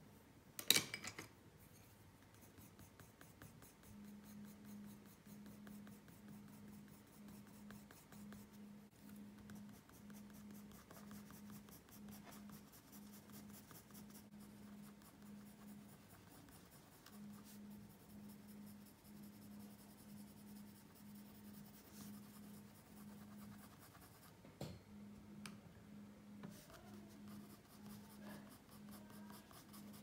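Colored pencil scratching on paper in quick repeated shading strokes, about two a second, with a sharp click about a second in.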